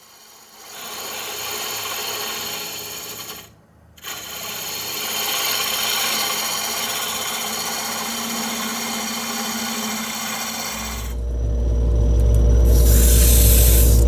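Wood lathe spinning a wooden blank while a turning tool cuts it: a steady hiss of wood being cut over the machine's hum, broken by a short dip a few seconds in. Near the end it changes to a louder rubbing with a deep rumble as sandpaper is held to the spinning wood.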